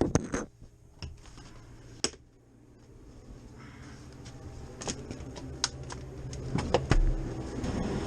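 A scattered series of sharp clicks and knocks, like keys and gear being handled, over a low steady hum that grows louder near the end.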